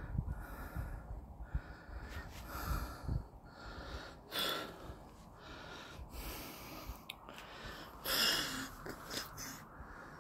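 Close breathing into a phone microphone: several short hissing breaths, the plainest about four and eight seconds in, with low thumps of handling noise in the first few seconds.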